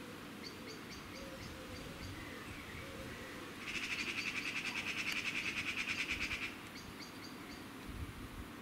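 A bird's fast, even trill lasting about three seconds from near the middle, the loudest sound here, with short high chirps from birds before and after it over a low background rumble.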